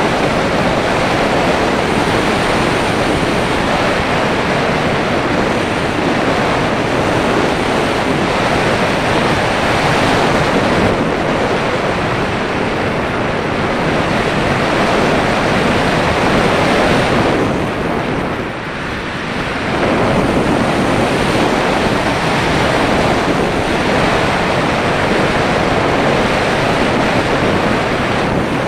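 Wind noise from airflow rushing over the microphone of an action camera mounted on an unpowered slope-soaring glider in flight. It is steady and loud, softening briefly about two-thirds of the way through.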